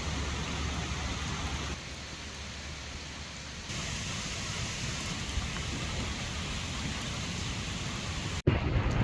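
Steady rain falling, an even hiss that changes abruptly at a few cuts. Near the end it switches to a louder, rough low rumble of wind buffeting the microphone.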